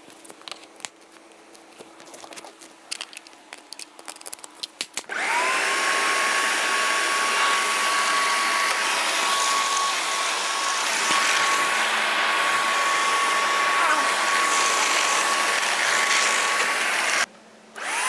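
A carpet-washing machine's suction motor starts up about five seconds in with a rising whine, then runs steadily with a high whine over a hiss of air. It cuts off near the end and starts up again. Before it starts there are scattered clicks and knocks.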